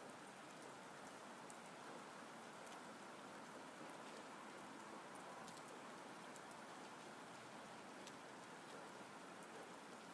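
Faint, steady water ambience: an even hiss with scattered small ticks, like rain or running water.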